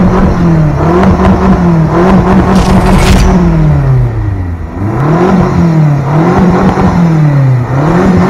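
Engine revving over and over, its pitch rising and falling about once a second, with a brief hissing whoosh about three seconds in.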